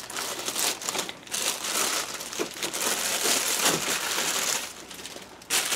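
Clear plastic wrapping on a large RC truck's tyres crinkling and rustling in uneven spurts as the truck is handled, with a sharper crackle near the end.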